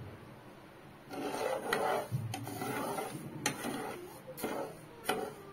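Silicone spatula stirring sugar and water in a pan, scraping the still-undissolved sugar grains over the pan's bottom with a gritty rubbing and a few light knocks, starting about a second in. It is the first stage of making sugar syrup.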